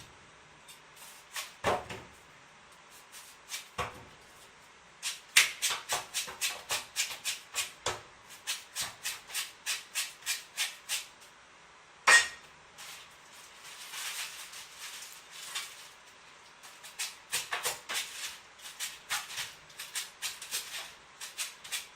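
Knife strokes on fruit: a few single cuts, then two runs of quick, even strokes at about three a second, the sound of a street vendor peeling or slicing fruit at speed.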